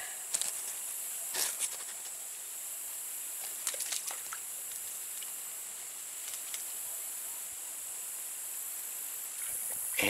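Steady high-pitched hiss of a summer insect chorus, broken by a few brief rustles and snaps as a long picking pole is worked through the leaves and branches of a pawpaw tree.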